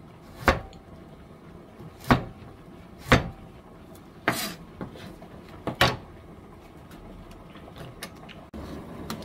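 Kitchen knife slicing through carrot onto a cutting board: about five separate, sharp chops a second or so apart.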